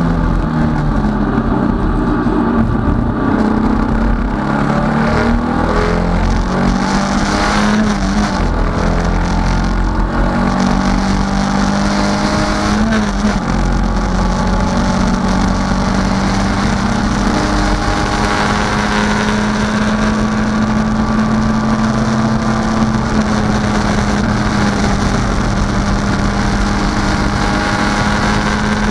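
Datsun 510 race car's engine heard from inside the cabin at racing speed, its pitch rising and falling through gear changes in the first half, then held steady through the last part of the stretch.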